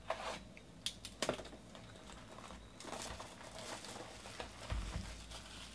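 Plastic trading card pack wrapper crinkling faintly as a pack is taken from the box and handled. A few light clicks and taps come in the first second and a half, and a soft thump comes near the end.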